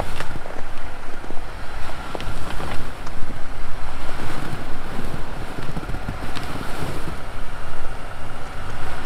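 Jeep driving slowly over snow on a forest trail, its engine and tyres heard under wind buffeting the microphone, with a few scattered clicks.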